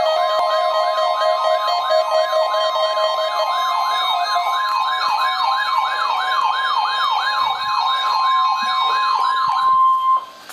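NOAA Weather Radio warning alarm: a steady high tone near 1 kHz, layered with an electronic siren that sweeps up and down about three times a second. A lower steady tone drops out about a third of the way in, and everything cuts off abruptly just before the end.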